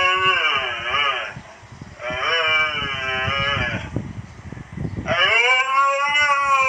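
A husky howling and yowling in three long, wavering calls whose pitch bends up and down. The first is already under way and ends about a second in, the second runs from about two seconds in, and the third starts about five seconds in.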